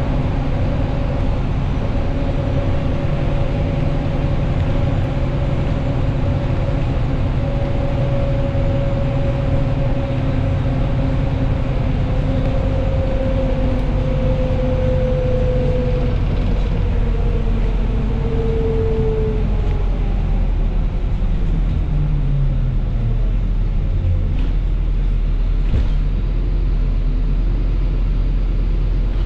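MAZ-103 city bus driving at speed, heard from inside the passenger cabin: a steady low rumble of engine and tyres, with a drivetrain whine that slowly falls in pitch through the middle.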